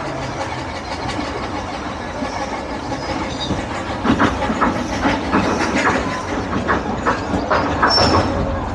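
Heritage railway train running along the track: a steady rumble, with wheels clicking and knocking over the rail joints from about four seconds in.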